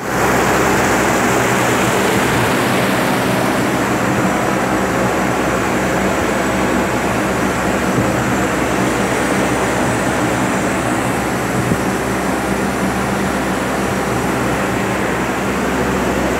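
Loud, steady drone of industrial machinery and fans running, with a constant low hum.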